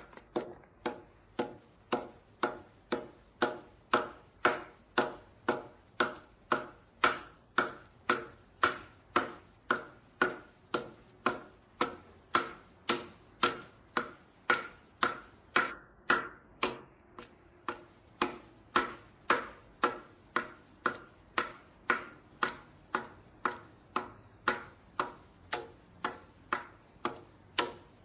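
Japanese adze (chouna) hewing a squared log beam: a steady run of sharp chops of the blade biting into the wood, a little under two a second, with a brief pause about two-thirds of the way through.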